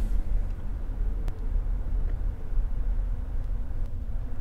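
Steady low rumble of a car's engine and tyres heard from inside the cabin while driving, with one faint click about a second in.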